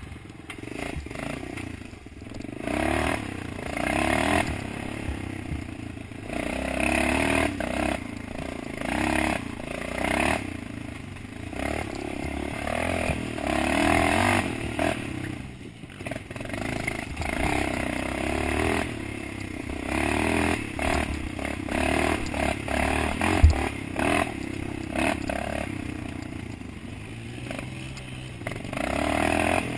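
Dirt bike engine revving up and falling back over and over as it is ridden over rough trail, with rattles and scrapes from the bike and ground. A single sharp knock about three-quarters of the way through.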